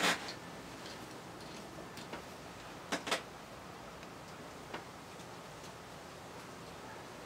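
Sharp metallic clicks of stainless steel fittings and a sight glass being handled and fitted together: one click at the start, a quick pair about three seconds in, and a faint one near five seconds.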